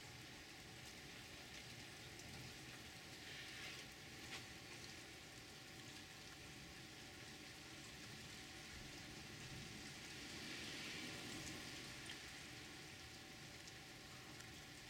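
Heavy rain falling steadily, a soft even hiss with a few faint drop ticks, swelling slightly about ten seconds in.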